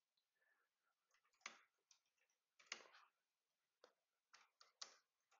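Faint computer keyboard typing: a few irregular, scattered key clicks.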